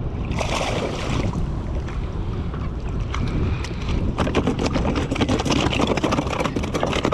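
Wind buffeting the microphone over open water around a kayak, a steady low rumble. From about four seconds in come a run of small clicks and knocks.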